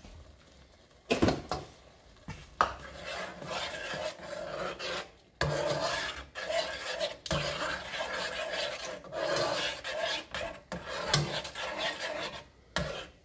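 A spoon stirring thick, creamy wild rice soup in a pot, scraping along the bottom and sides in strokes about once a second. It follows two sharp knocks against the pot in the first few seconds.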